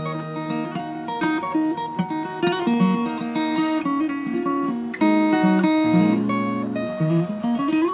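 Background music: acoustic guitar playing picked notes and strummed chords.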